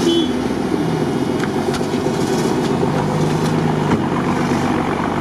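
Off-road vehicle engine running at low revs, a steady loud drone.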